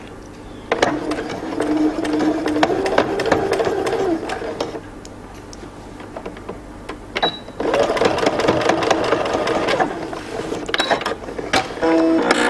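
Domestic electric sewing machine stitching through layered fabric in two runs of a few seconds each, stopping for about three seconds between them.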